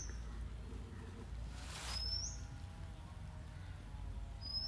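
A bird repeating one short, sharp, upward-sweeping call about every two seconds, with a brief soft hiss a little under two seconds in, over a low outdoor rumble.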